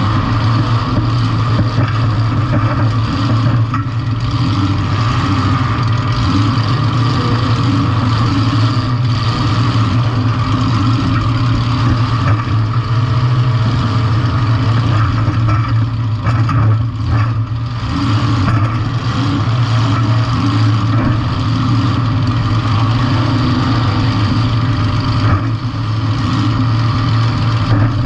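Compact demolition-derby car's engine running loud and steady, a strong low drone with some unevenness.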